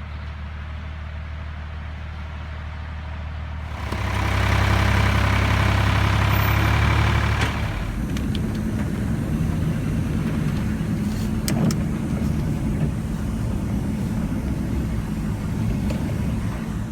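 Small tractor's engine running steadily. It gets louder for a few seconds, starting about four seconds in, then settles to a steady run again.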